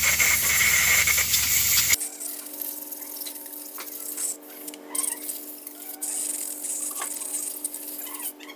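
Compressed air blowing with a loud, steady hiss to dry a freshly cleaned brake caliper, cutting off suddenly about two seconds in. Then faint rubbing and small handling sounds over a steady hum.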